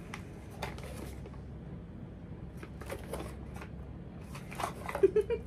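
A small cardboard product carton being handled and opened by hand: light rustling of card and packaging with scattered soft clicks.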